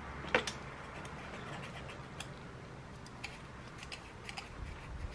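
A few small metallic clicks and light scraping from hand work at a pit bike engine's cylinder head, as the valve clearances are checked with a feeler gauge.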